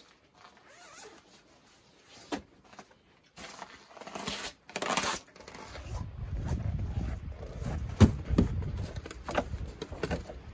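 Faint rustling of winter clothing, then a low rumble with footsteps crunching in deep snow, the loudest crunch about eight seconds in.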